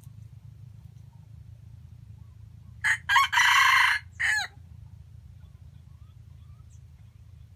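A red junglefowl rooster crowing once, about three seconds in: a short, clipped crow of a few quick notes and a longer middle part, ending in a brief falling note.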